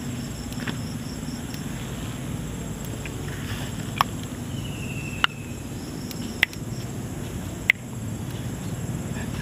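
Four sharp snaps, about a second apart, as bird's-eye chilies are plucked off the bush by hand, over a steady background of insects chirping.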